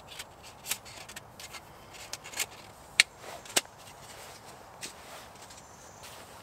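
Thin perforated sheet-metal panels of a flat-pack fire pit being flexed and slotted together, giving a series of light metallic clicks and clacks, the sharpest about three seconds in.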